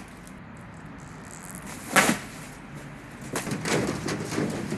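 Knocking from timber construction work: one sharp knock about two seconds in, then a run of lighter, irregular knocks and clatter.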